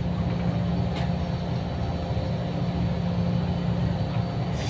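Steady hum of running air-conditioning machinery with a constant low tone, a faint click about a second in and a brief hiss near the end.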